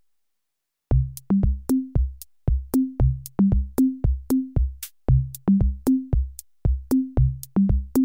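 Electronic background music: a drum-machine beat of punchy bass-drum hits with short pitched low notes, starting after a brief silence about a second in.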